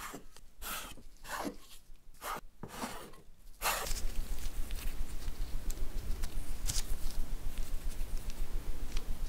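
Bench scraper chopping through rolled-out yeast dough onto a wooden board: a quick run of about eight short cuts with brief gaps between. After about four seconds the cuts stop and a steady low hum and hiss take over, with a few faint soft touches as fingers separate and lift the dough wedges.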